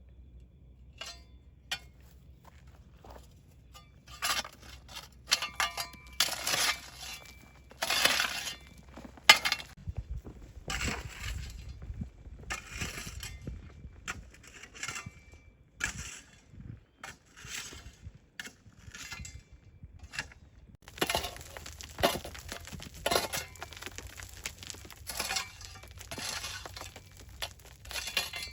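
Kitchen handling sounds: repeated crunching and scraping strokes with light clicks and clinks in between, in two busy stretches.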